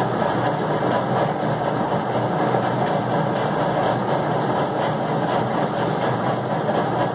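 A steady, unbroken mechanical running noise, like a motor, with no clear rhythm.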